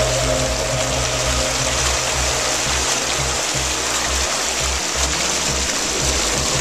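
Background music with held notes and a bass line, over a steady rushing hiss of moving water.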